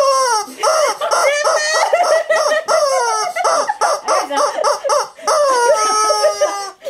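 Yellow rubber screaming-chicken toy squeezed over and over, giving a rapid string of loud honking squawks, with longer drawn-out squawks near the end.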